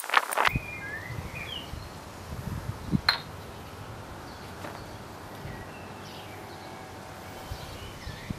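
Sweets Homegrown maple kendama clacking as the wooden ball strikes the ken: a few sharp wooden clicks, one at the very start and the loudest about three seconds in. Birds chirp faintly in the background.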